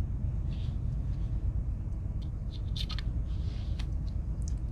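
Faint small clicks and light scrapes as the toothpick and tweezers are handled in the scales of a Victorinox Swiss Army knife, over a steady low room hum.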